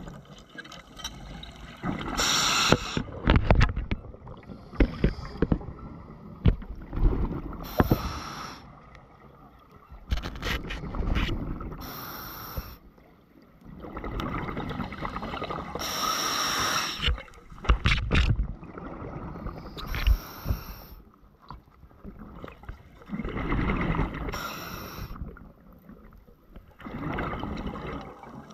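Scuba diver breathing through a regulator underwater: a hissing inhalation and a burst of bubbling exhaust about every four seconds, with scattered clicks and knocks from handled gear.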